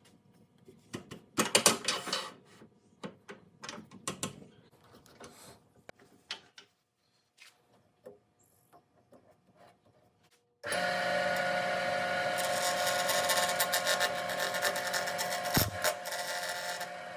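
Scattered knocks and clatter for about ten seconds, then a wood lathe's motor starts and runs steadily, with a hum under a loud noisy whir.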